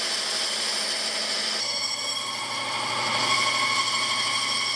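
Band saw running and cutting through thick Baltic birch plywood: a steady whine over a hiss. The tone shifts slightly about a second and a half in.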